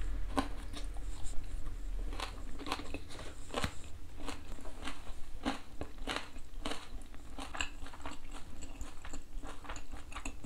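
A person chewing a mouthful of cracker topped with smoked oyster, cucumber and cheese, picked up close by a clip-on microphone: irregular crisp crunches about twice a second.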